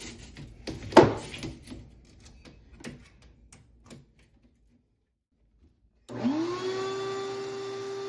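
Knocks and clatter from handling the vent-cleaning rod sections, the loudest about a second in. After a brief silence, an electric motor spins up with a rising whine about six seconds in and settles to a steady hum.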